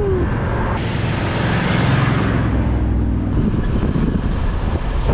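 Vehicle driving on soft beach sand: its engine runs steadily under load beneath a loud, even rush of noise.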